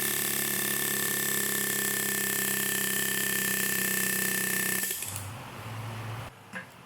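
Pneumatic air tool running in one continuous burst of about five seconds, then stopping, as it frees a stuck pinion flange on a rear differential. A lower hum follows briefly, then a couple of faint clicks.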